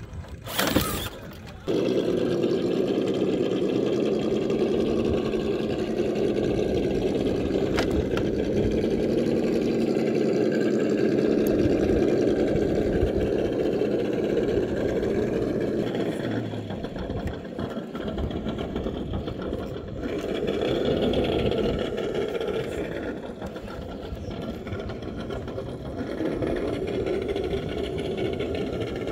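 Electric motors and geared drivetrains of 1/10 scale RC rock crawlers whining steadily as they crawl over rocks. The sound shifts from clip to clip, after a brief loud noise near the start.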